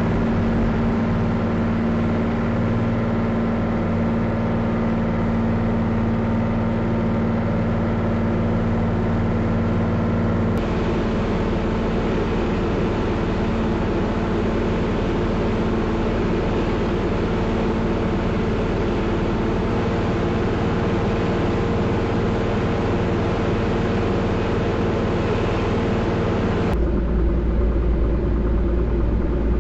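Steady drone of a light aircraft's piston engine and propeller heard inside the cockpit, picked up by a dash camera's microphone. The tone changes abruptly at about ten seconds and again near the end, where a heavy low rumble comes in.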